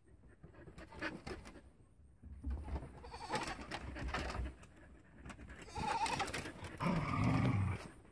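Goat bleating. The loudest bleat is a long one near the end, after a shorter, higher call about six seconds in.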